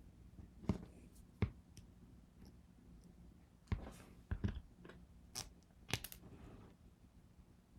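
Small metal pieces and hand tools clicking and tapping on a work surface while being handled: about eight sharp, irregular taps, the loudest near the start and in the middle.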